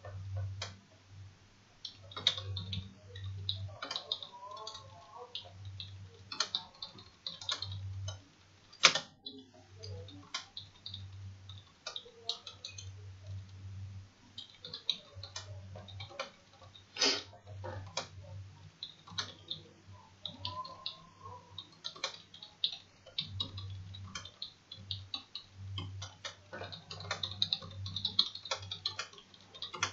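Typing on a computer keyboard: irregular runs of key clicks with short pauses between them, over a faint low hum.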